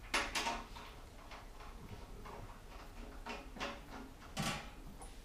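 A few light clicks and taps of brass radiator valve parts being handled and fitted by hand, with the loudest knock near the end.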